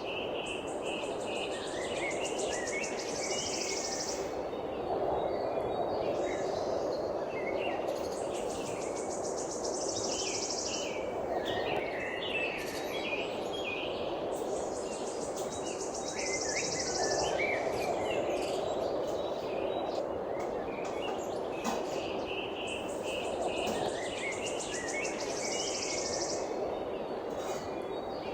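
Songbirds chirping over a steady low rushing background, with a high buzzing trill of about three seconds that comes back roughly every seven seconds.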